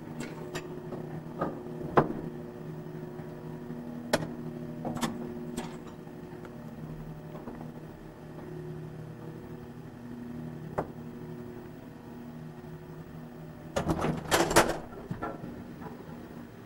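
Elevator car running: a steady low machine hum with several tones, and a few sharp clicks and knocks. A short louder burst of noise comes about fourteen seconds in.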